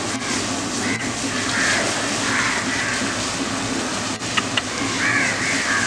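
Water from a garden hose spraying and splashing onto an elephant's body, a steady hiss, with a couple of sharp clicks a little after four seconds.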